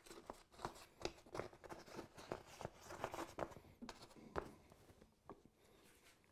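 Faint rustling and soft, irregular taps of a padded fabric insulation pad being pressed and smoothed into a freeze dryer's round chamber opening, growing quieter in the last couple of seconds.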